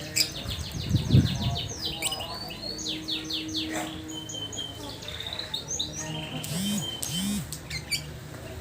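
Lovebird ngekek: a long, fast chattering trill of sharp, repeated high chirps, which thins into scattered chirps after about four seconds. A low thump about a second in is the loudest moment.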